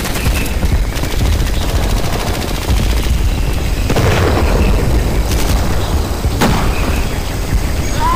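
Battle sound effects: bursts of rapid gunfire over a continuous low rumble.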